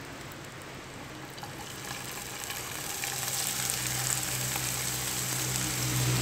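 Shucked oysters (ostiones) tipped into hot oil in a frying pan and sizzling. The frying gets louder over the first few seconds as more of them go in.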